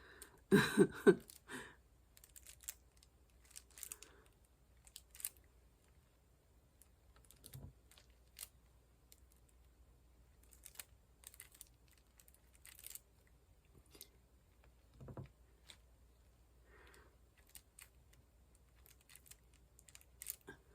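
Diamond painting work: scattered light clicks and taps of a drill pen picking up square resin drills and pressing them onto the canvas, with a louder short cluster of knocks about half a second in.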